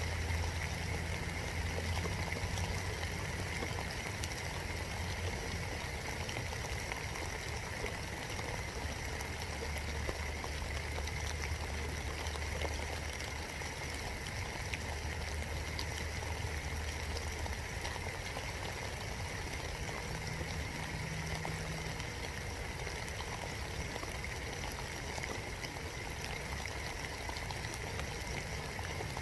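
Steady spring rain heard from inside a birdhouse: an even hiss with many separate drop ticks striking close by. A faint low hum comes and goes underneath, strongest near the start and between about ten and seventeen seconds in.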